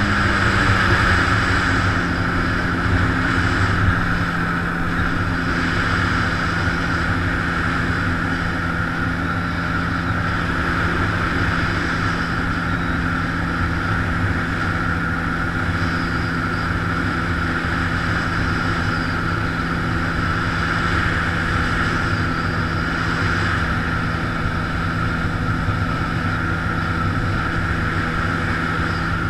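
Yamaha jet ski engine running at a steady pitch as the craft moves along calm water, with a steady hiss of water and wind over it.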